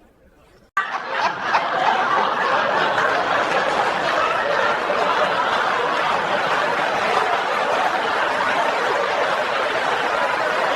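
A crowd laughing together, breaking out suddenly about a second in and going on steadily.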